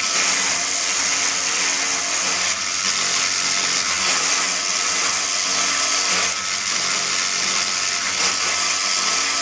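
Small electric motor spinning the model airplane's wooden propeller disc at speed: a steady motor whine with a strong airy hiss, holding even throughout.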